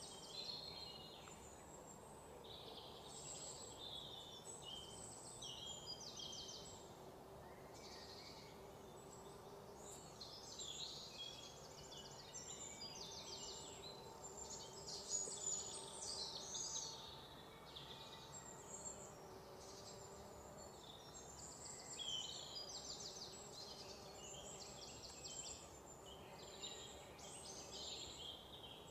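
Faint outdoor ambience of birds and insects, with high chirps and trills coming and going.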